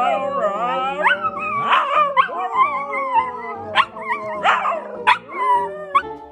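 A dog whining and howling in long, wavering cries that slide up and down in pitch, broken by a few short sharp yelps, as if arguing back.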